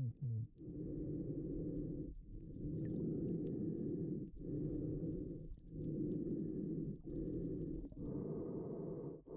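Muffled underwater sound through a GoPro Hero7's waterproof housing: a snorkeler breathing through a snorkel, coming in surges every second or two with short breaks between them.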